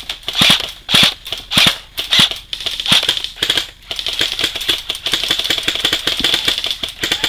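Airsoft gun firing: single shots about every half second or so, then from about four seconds in a fast, unbroken run of shots.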